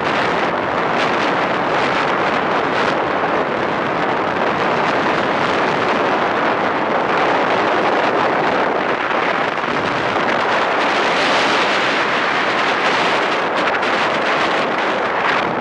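Land yacht under way on a hard dry lake bed: a steady, loud rush of wind over the microphone mixed with the rolling noise of the wheels on the playa.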